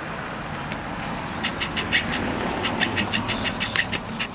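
A baby marten chattering, its agitated scolding call, in short runs of rapid, sharp clicks, with the low rumble of a car passing in the street underneath.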